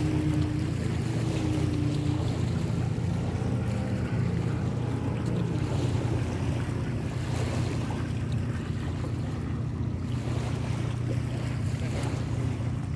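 A boat engine running with a steady low hum, its pitch wavering slightly in the first couple of seconds, with wind rushing over the microphone.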